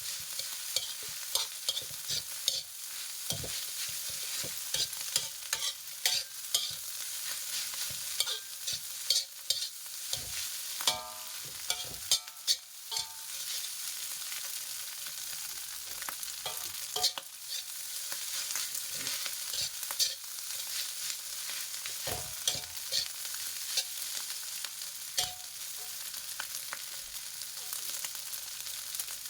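Fried rice sizzling in a frying pan while a spatula stirs and tosses it, with frequent sharp clicks and scrapes of the spatula against the pan and a brief squeak about eleven seconds in.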